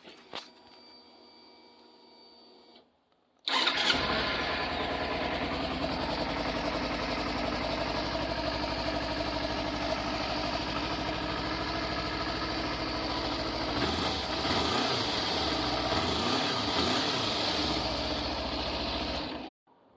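Kawasaki Versys 300's 296 cc parallel-twin engine started through its exhaust, catching at once and settling into a steady idle. The pitch wavers briefly in the middle, and the engine is shut off suddenly near the end.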